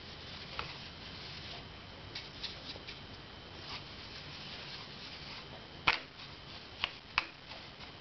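Scattered small clicks and knocks from metal clutch parts and tools being handled, over a faint steady room background; the loudest click comes about six seconds in, with two more shortly after.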